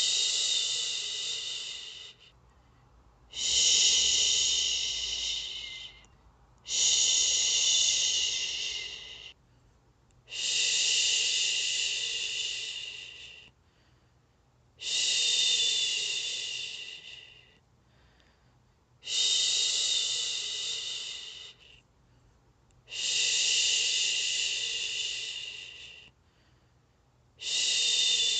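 A woman shushing a baby to sleep: eight long 'shhh' sounds, each about two seconds, starting strong and fading away, repeated every three to four seconds with a short pause between.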